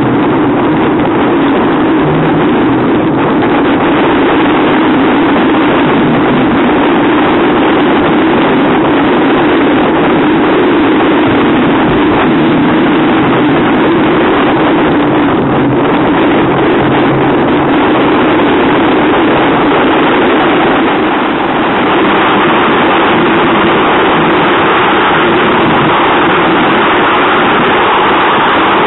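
The twin outboard engines of an RNLI Atlantic 85 rigid-inflatable lifeboat running hard at speed, loud and steady, mixed with wind rushing over the microphone and water noise in a rough sea.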